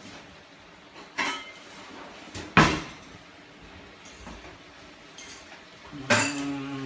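Kitchen cupboards and drawers being opened and shut while someone rummages, giving a few separate knocks, the sharpest about two and a half seconds in.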